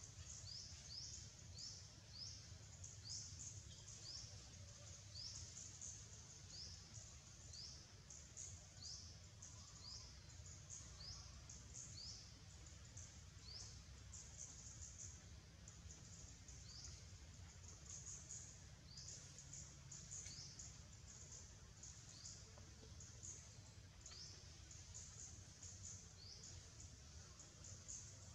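Faint high chirping calls, each a short rising note, repeating about twice a second over a low steady hum.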